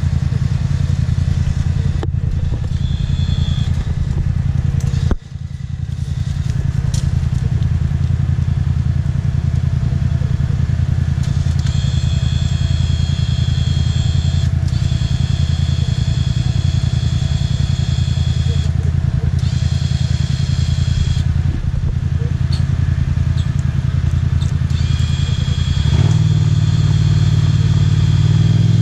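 ATV (quad) engine running at a steady idle, with a thin high whine coming and going. Near the end the revs rise.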